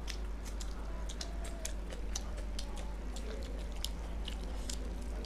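Close-miked chewing and wet mouth sounds of people eating rice and curry by hand, with many short crisp clicks and smacks. A steady low hum runs underneath.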